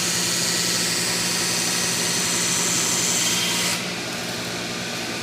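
Automated belt grinder grinding a welded stainless steel seam: a steady abrasive hiss over the hum of the grinder motor. About three and a half seconds in the grinding hiss drops away and the motor runs on.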